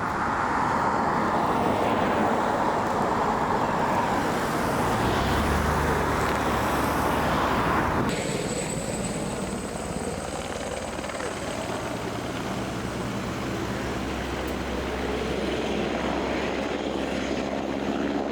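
Firefighting aircraft engines running steadily, a dense engine noise with a low hum underneath. The sound changes abruptly about eight seconds in.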